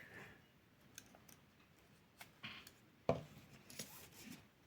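Faint handling noises of paracord being worked by hand: a few light clicks and short rubbing sounds, the strongest about three seconds in.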